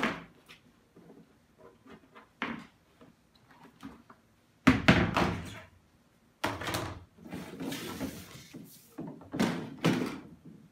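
Knocks and scrapes of hard plastic as a Summer Infant Soothing Waters baby bath's tub and stand are handled and set down on a wooden floor, the loudest knock about halfway through.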